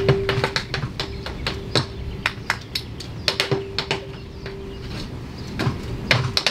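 Quick, uneven percussive taps and thumps from a solo performer's routine on a stage, with a faint steady hum that comes and goes.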